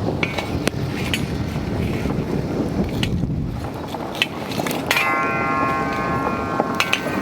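Wood campfire burning, with sharp crackles and pops over a steady low rush of flame and wind. About five seconds in, a steady tone with several pitches sounds for about two seconds.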